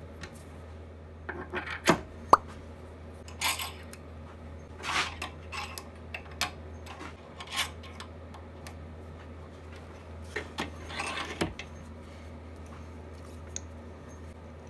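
Metal pen-turning parts and a drilled wooden pen blank being handled and fitted onto a lathe: scattered clicks, metallic clinks and short scrapes, the sharpest a ringing clink about two seconds in, over a steady low hum.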